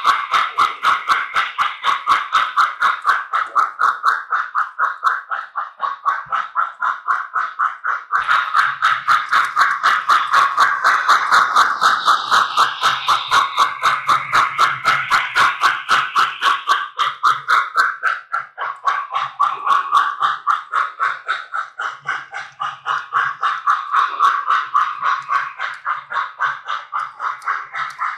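Model steam locomotive running, its electronic sound system giving a rapid, even beat of steam chuffs that eases and picks up slightly, with a faint low motor hum coming and going.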